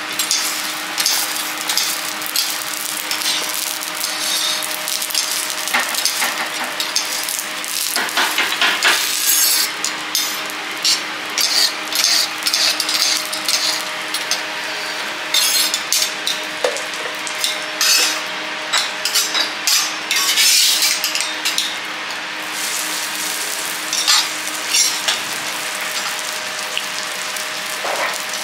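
Butter and oil sizzling steadily on a hot steel teppanyaki griddle, with frequent sharp clicks and scrapes of a knife and fork on the steel plate. A faint steady hum runs underneath.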